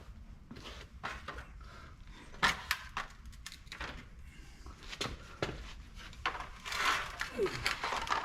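Handling noise of a cut lower valance section being fitted over the old valance: scattered clicks and knocks, then a stretch of scraping and rubbing near the end as the pieces are slid together.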